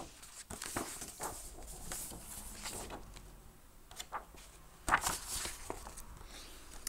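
Paper pages of a picture book rustling and crackling as a page is turned and the book handled, with a string of light taps and one sharper crackle about five seconds in.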